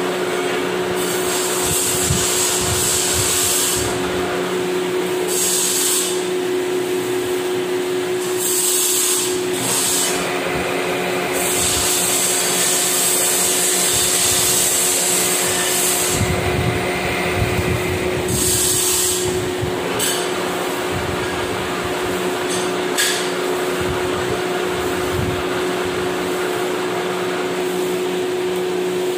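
Metal lathe running with a steady hum as the tool cuts a screw thread into a metal shaft. A high hiss of cutting comes and goes in stretches of one to five seconds over the first twenty seconds.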